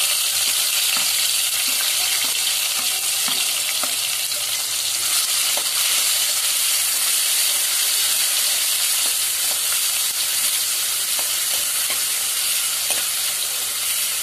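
Chopped tomatoes and green chillies frying in hot oil in a pan, a steady sizzle, with scattered light clicks and scrapes from a steel spoon stirring them.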